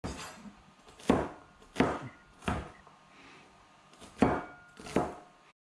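Kitchen knife chopping garlic cloves on a cutting board: five sharp knocks of the blade, three about two-thirds of a second apart, then a pause, then two more.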